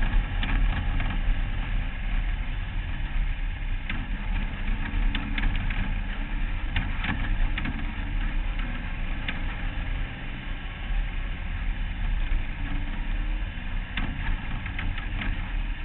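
Off-road race car's engine running at a slow caution-lap pace behind the pace car, picked up on the car's own hood-mounted camera. Sharp clicks and rattles come through now and then.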